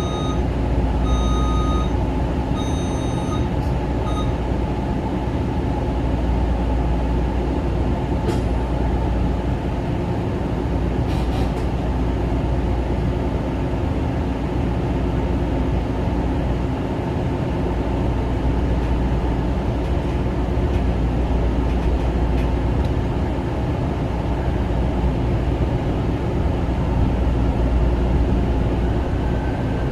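Kawasaki M9 electric multiple-unit railcar running along the track: a steady rumble of wheels on rail with a constant low hum. A few short high beeps sound in the first four seconds, and a faint rising whine comes in near the end.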